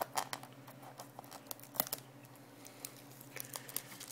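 Fingers handling a cellophane-wrapped wooden cigar box: scattered light clicks and taps, the sharpest just before two seconds in.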